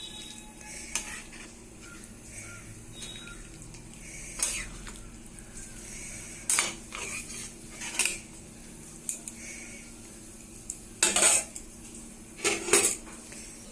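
Metal kitchen utensils clinking and scraping against a cooking pot. There are about eight separate clinks and knocks spaced irregularly, and the loudest two clusters come near the end.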